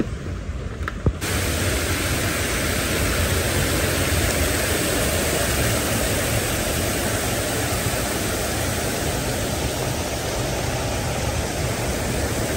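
Steady rushing noise that starts abruptly about a second in and holds level throughout.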